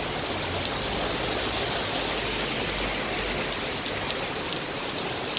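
Heavy rain falling steadily on the street and pavement, a dense, even hiss, with a low rumble swelling through the middle.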